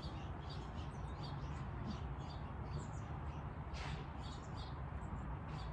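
Small birds chirping over a steady low background rumble, with one brief, sharper scratchy sound about four seconds in.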